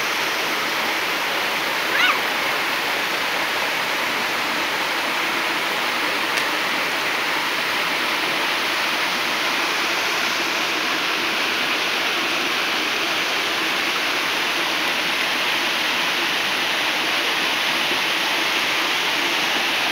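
Small waterfall cascading into a rocky mountain stream: a steady, even rush of falling and flowing water.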